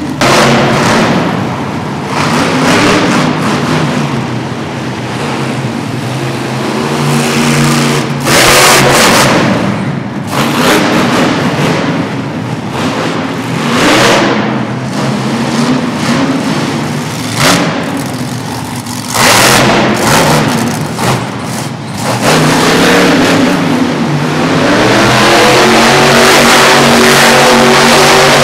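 Monster truck engine revving in repeated hard bursts of throttle, its pitch rising and falling, then held loud and steady at high revs for the last few seconds.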